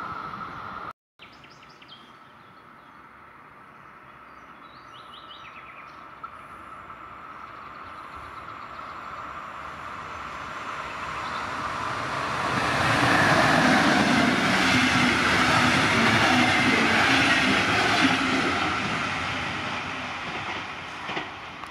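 A DB Class 112 electric locomotive hauling regional express coaches passes through without stopping. The rail and wheel noise builds slowly from a couple of seconds in, is loudest for several seconds in the second half, then dies away.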